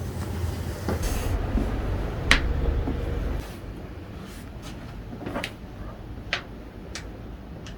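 Joints cracking during a chiropractic adjustment: one sharp crack a little over two seconds in, then about six fainter clicks spread over the next five seconds. A low rumble lies under the first few seconds and stops about three and a half seconds in.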